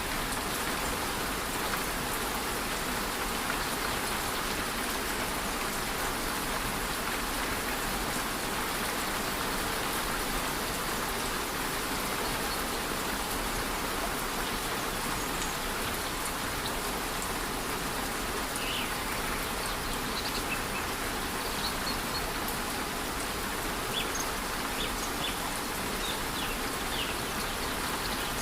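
Steady rush of a rainforest waterfall in light rain, an even, constant hiss of falling water. Faint short high calls come in now and then in the second half.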